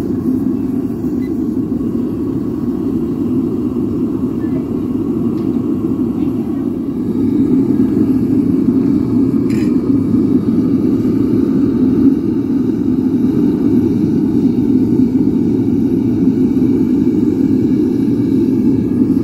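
Devil Forge gas burner firing a melting furnace with a crucible of aluminium inside, running steadily with a deep rushing sound. It grows louder about seven seconds in.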